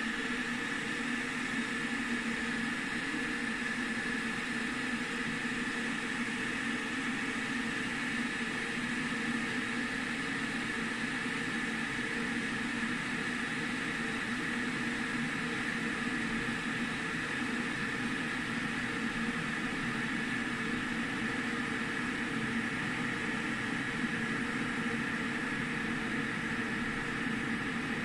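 Aigostar Queen 2200 W stainless-steel electric kettle heating under a litre of cold water: a steady hissing, rushing noise as the water works toward the boil.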